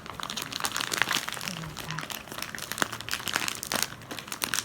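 Gift wrapping crinkling and crackling as a wrapped package is handled and torn open, in a quick irregular run of rustles.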